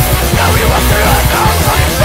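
Loud heavy rock music with a driving beat, in a punk and metal vein.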